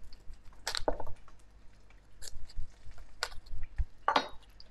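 Knife cutting the green leaves off a raw cauliflower head: a handful of crisp, separate crunches as the blade snaps through the leaf stalks, with a longer crackling snap near the end.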